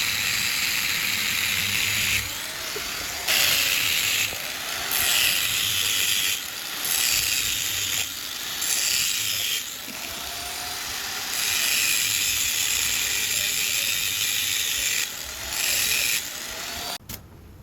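A rattling mechanical tool running in repeated spells of one to three seconds, with short pauses between them. It stops abruptly near the end.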